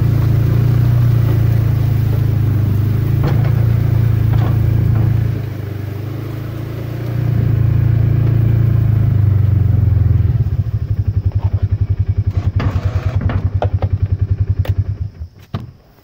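Ranger side-by-side utility vehicle's engine running steadily under way, easing off briefly about five seconds in. About ten seconds in it drops to a fast, pulsing beat with a few knocks and rattles, then shuts off near the end.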